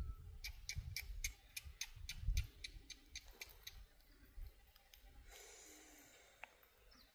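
A faint run of sharp ticks or clicks, about four a second for some three seconds, over an uneven low rumble.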